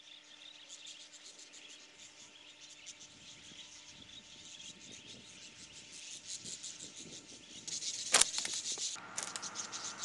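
Insects chirring in a fast, pulsing high trill, with one sharp crack about eight seconds in.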